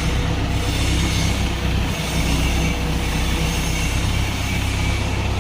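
Drum wood chipper running steadily: a loud, continuous mechanical rumble with a heavy low drone.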